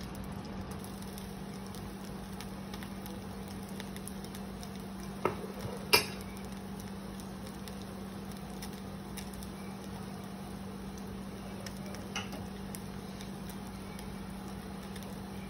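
An egg-and-cheese tortilla frying in oil in a cast iron skillet: a faint steady crackle over a low hum, with a metal spatula knocking against the cast iron a few times, loudest about six seconds in.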